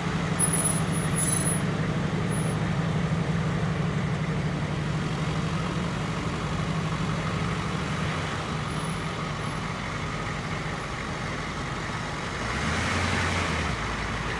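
Ambulance engines running with a steady low hum. One vehicle gets louder for about a second near the end as the sound swells close by.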